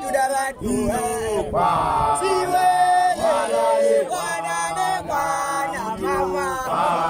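Male voices chanting an initiation-school song: a lead voice sings long, held notes that slide up and down, with other men's voices joining in at times.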